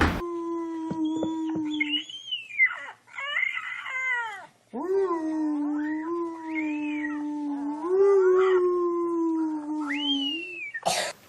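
A pet animal yowling: a drawn-out call held at a steady pitch, a few short falling cries, then one long call of several seconds with small rises in pitch.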